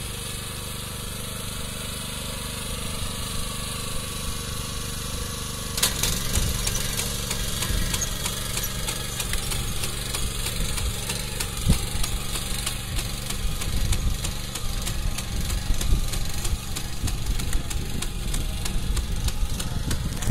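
Kubota four-row walk-behind rice transplanter's small engine running steadily as the machine works through a flooded paddy. A sharp click about six seconds in, after which it runs louder with rapid mechanical ticking.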